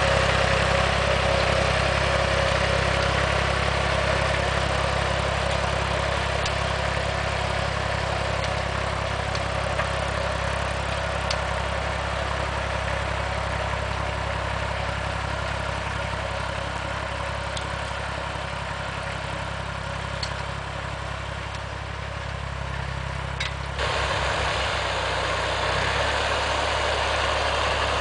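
Massey Ferguson 35X tractor's three-cylinder Perkins diesel engine running steadily under load as it pulls a planting implement through the soil. Near the end the engine sound steps up and is louder.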